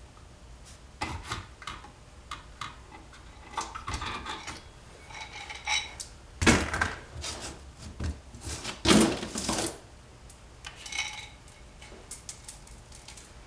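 Steel engine parts clinking and clattering as a camshaft with its sprocket and a timing chain are handled. There are scattered sharp knocks with short metallic rings, loudest about six and nine seconds in.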